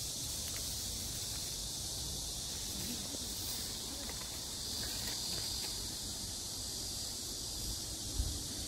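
Cicadas buzzing in a steady, high-pitched summer chorus, with a low rumble underneath.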